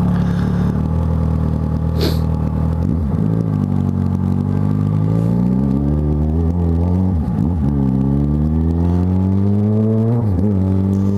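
Yamaha XJ6's inline-four engine pulling under acceleration, its pitch climbing and then dropping sharply at each upshift, three times. A brief sharp click about two seconds in.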